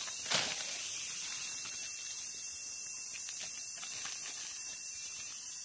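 Steady high-pitched buzzing drone of forest insects, with a brief rustle just after the start.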